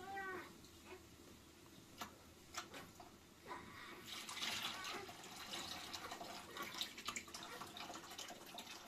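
Rice being rinsed by hand in a plastic basin of water: cloudy rinse water pours and splashes from a bowl, with small splashes and clinks, and the sloshing is loudest about four seconds in.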